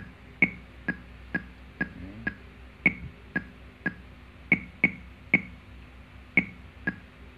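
NUX MG100 multi-effects pedal's built-in metronome clicking steadily at about two clicks a second, with some clicks pitched higher as accents.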